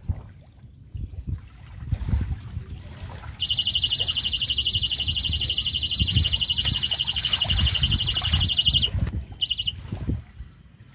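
Electronic carp bite alarm sounding a continuous high buzzing tone for about five seconds as a fish runs with the line, then a short second burst. Low gusty rumbling runs underneath.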